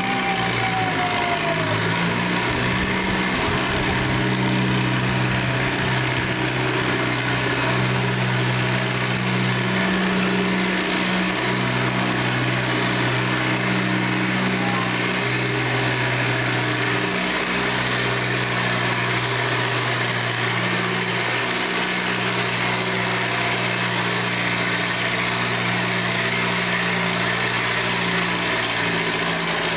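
Farm tractor engine running steadily under load while pulling a weight-transfer sled. It makes a deep, even drone that sags briefly a few times.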